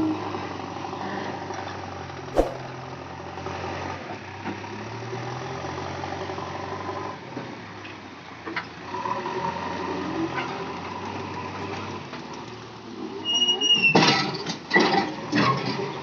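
JCB 3DX backhoe loader's diesel engine running steadily while the machine works, with a single click about two seconds in. Near the end a brief high squeal is followed by a cluster of loud clanks and knocks from the machine.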